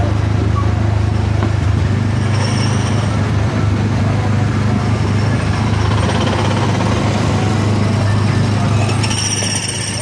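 Autopia ride car's small gasoline engine running steadily as the car drives along its guided track, a continuous low drone.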